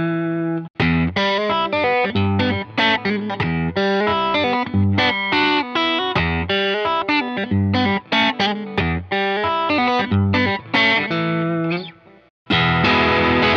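S-style solid-body electric guitar played through an amp with some overdrive, picking a rhythmic riff of single notes and chords over low bass notes. The sound cuts out briefly about twelve seconds in, then comes straight back in full.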